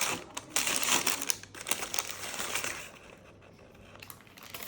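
Rustling and crinkling handling noise with light clicks and taps, dropping off about three seconds in and picking up again near the end.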